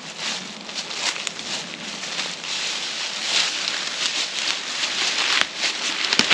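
Footsteps crunching through dry leaf litter at a steady walk, with a couple of sharp cracks near the end.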